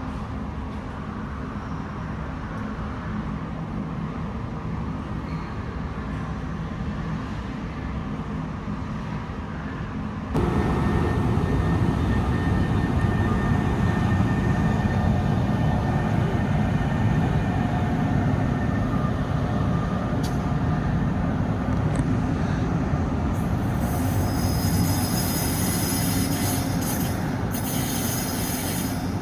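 Passenger train running through a station with a steady low rumble that gets suddenly louder about ten seconds in. High wheel squeal and sharp clicks come in near the end.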